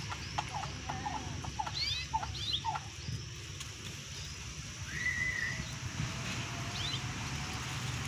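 Caged canaries chirping: a scatter of short chirps, busiest in the first few seconds, and one longer call about five seconds in.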